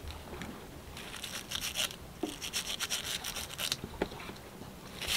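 Soft-bristled scrub brush scrubbing the valve from a boat engine's anti-siphon vented loop clean with soap and water, in two spells of quick strokes.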